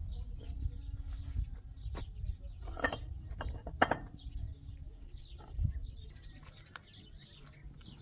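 Small birds chirping, with a low rumble underneath and a few sharp knocks, the loudest about three and four seconds in.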